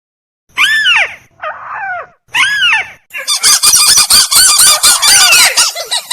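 Lure recording of tikusan (crake) calls: three separate harsh calls that each rise and fall in pitch, then, about three seconds in, a fast run of short, rapid notes that carries on.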